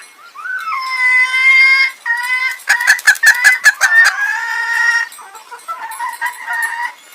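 A rooster crowing one long cock-a-doodle-doo, with a rapid stuttering middle and a held final note, followed by fainter short chicken calls.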